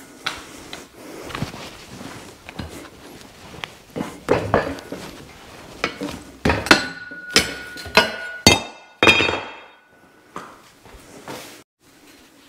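Steel plate clanking against a heavy steel pipe as it is worked loose by hand from the pipe's end, its welds cut through. Scattered knocks give way, about halfway in, to a quick run of sharp metal clanks, some leaving the pipe ringing.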